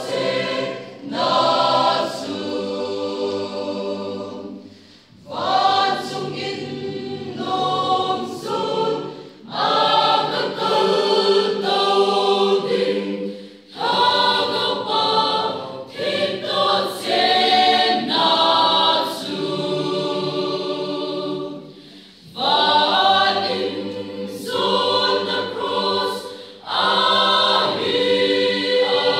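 Mixed choir of women's and men's voices singing in parts, without accompaniment, in phrases broken by short pauses for breath.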